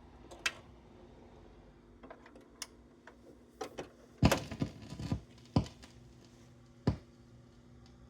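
Scattered sharp clicks and knocks over a faint steady hum, sparse at first and then a cluster of them from about four seconds in, the loudest just past four seconds.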